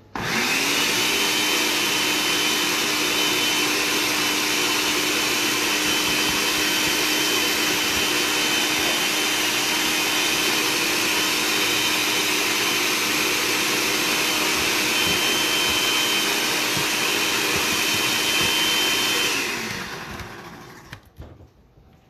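Countertop blender running at one steady speed, puréeing a green sauce; it starts at full speed at once. After about nineteen seconds it is switched off and the motor winds down, its pitch falling.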